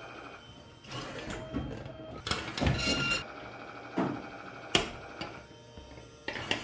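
Claw machine's crane motor running as the claw drops. The claw grabs a plastic crate with a loud rattling clatter, then lifts it with a few sharp knocks of plastic against the claw and the prizes.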